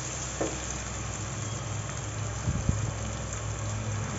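Chopped onions sizzling steadily in hot oil in a kadai, with a few light knocks against the pan about half a second in and again past the middle.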